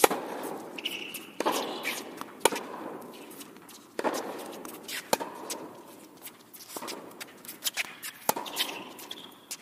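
Tennis rally: sharp pops of rackets striking the ball and the ball bouncing on the court, about one every second or so, each echoing in a large indoor tennis hall, with footsteps between.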